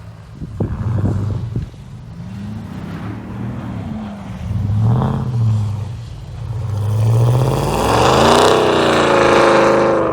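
Pickup truck engine revving hard in repeated rising and falling surges, the highest and loudest near the end, with a few sharp knocks about a second in.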